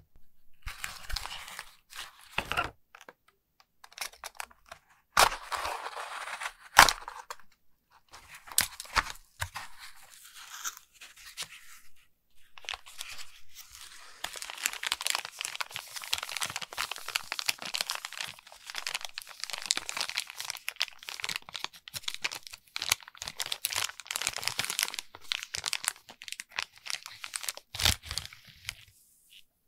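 Thin clear plastic packaging crinkling and rustling as gloved hands handle a bag of plastic toy fishing rods, with a couple of sharp plastic clicks about five and seven seconds in. A long run of steady crinkling fills the second half.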